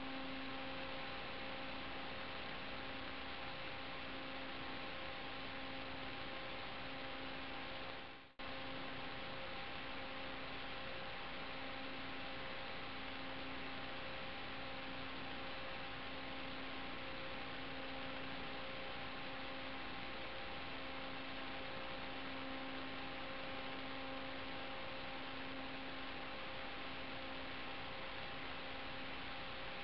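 Steady electrical hiss and hum with several faint steady whine tones, the lowest one pulsing gently about once a second, from the recording of an analog FPV video downlink rather than the plane's motor. The sound drops out briefly about eight seconds in.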